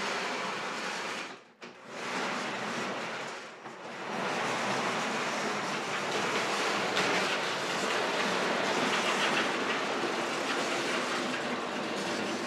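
Shop-made trolley rolling along overhead steel Unistrut channel with a shop vac hanging from it: a continuous metallic rolling clatter. It breaks off briefly about a second and a half in and again near four seconds, then runs steadily.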